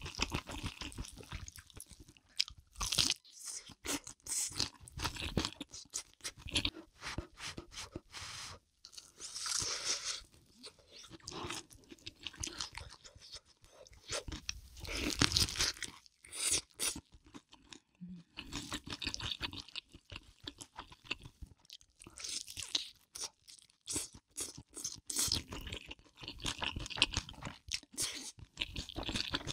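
A person biting into and chewing crunchy spicy chicken close to the microphone: irregular crunches with short pauses between mouthfuls.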